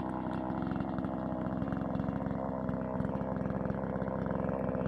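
Two-stroke chainsaw idling steadily, its engine ticking over evenly.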